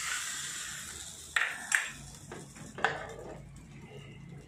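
Hot ghee tempering with mustard seeds sizzles as it meets the batter, fading within the first second. Then a metal spoon and the steel tadka pan clink sharply against the ceramic bowl three times as the tempering is scraped out and stirred in.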